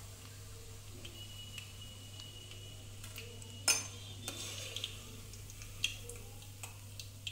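Hot oil sizzling faintly under shallow-fried egg halves as a perforated steel skimmer scoops them out, with a few sharp metal clinks of the skimmer against the steel pan and plate, the loudest about three and a half seconds in.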